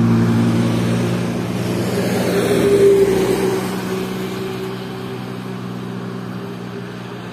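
Road traffic: a car passes at the start, then a tanker truck's diesel engine passes and pulls away up the road. The sound is loudest about three seconds in and fades after that.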